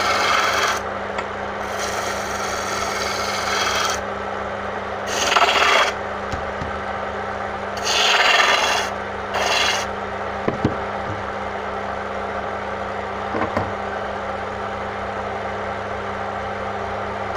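Electric wood lathe running steadily while a hand-held turning chisel cuts into the spinning wood blank, in five scraping passes over the first ten seconds. After that only the lathe motor's hum continues.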